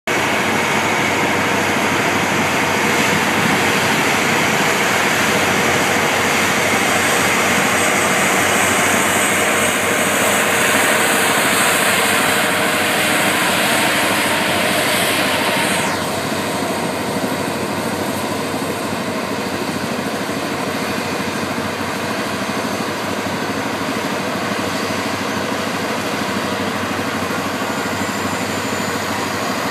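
Seismic vibrator trucks' diesel engines running loudly under a strong high hiss. About halfway through, the hiss cuts off suddenly and the engines carry on at a lower, steadier level.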